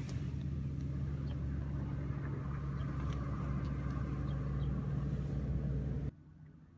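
Vehicle engine running with a steady low drone. It cuts off suddenly about six seconds in, leaving only a faint hum.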